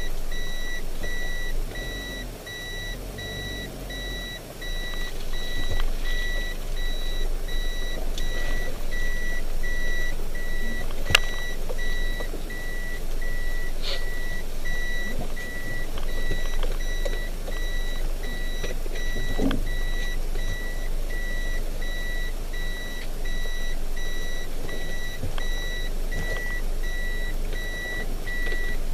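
A vehicle's reverse-gear warning beeper sounding inside the cabin, a high beep repeating at an even pace: the van is in reverse. A low vehicle rumble runs underneath.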